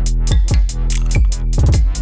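Electronic background music with a steady beat: deep kick drums, a sustained bass line and crisp hi-hats ticking several times a second.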